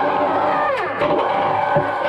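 Twin-shaft shredder chewing coconut husk. Its motor whine drops in pitch under the load as the blades bite, then recovers about a second in, with a knock near the end.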